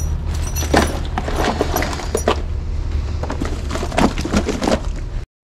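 Hands rummaging through gear: irregular knocks, clatters and crinkles of a bottle, plastic items and a bag, over a steady low hum. The sound cuts off abruptly just before the end.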